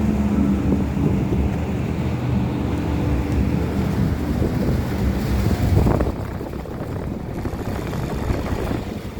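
Two LG floor-standing air conditioners running together: rushing air from the fans over a low mechanical hum. The sound gets a little quieter about six seconds in.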